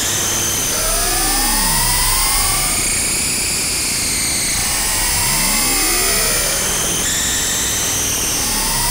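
Yamaha TG33 synthesizer playing a creepy sound-design patch: pitched tones sweep up and down past each other, repeating about every four seconds, over a steady high hiss and a low hum.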